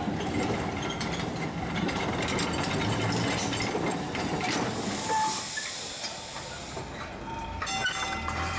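Vintage electric tram rolling slowly past at close range with a steady rumble, then a hiss about five seconds in.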